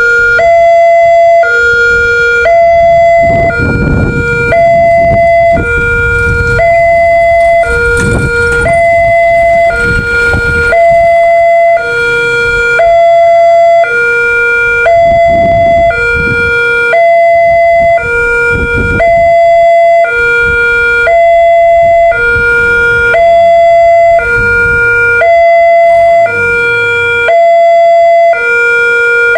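Newly installed electronic warning siren of a railway level crossing barrier, sounding continuously as it warns of an approaching train. It alternates evenly between a lower and a higher tone, each held about two-thirds of a second.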